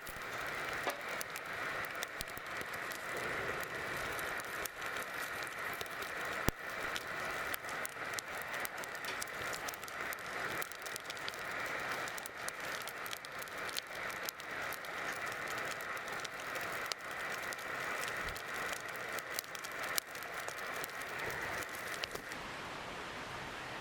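Wood campfire crackling and popping with many small sharp snaps, over a steady high-pitched hiss in the background that drops away near the end.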